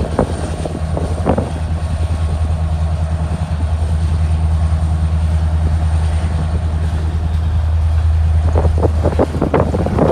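Freight train passing close by: steady low drone of a mid-train diesel locomotive (distributed power unit) pulling away, under the rolling rumble of covered hopper cars. Wheels clack over the rail in short runs shortly after the start and again in the last couple of seconds.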